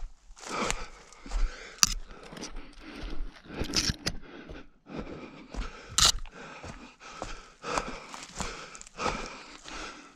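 An orienteer on the move: repeated footsteps in a steady rhythm, with heavy breathing between them.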